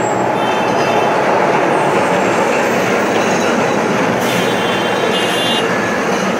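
Calcutta tram car running on its rails, heard from inside the passenger compartment: a steady, loud rumble of wheels and car body, with faint brief high squeals near the start and again about five seconds in.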